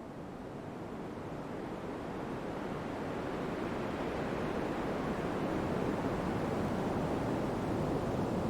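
Pink noise fading in: a steady, even hiss that grows louder over the first several seconds, then holds level.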